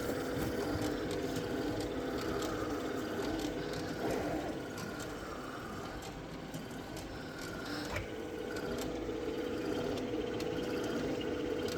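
Rotimatic NEXT roti-making machine running with a loud, steady mechanical hum, with scattered clicks and rattles. The hum fades about four seconds in and comes back about eight seconds in. The owner takes the noise for abnormally loud.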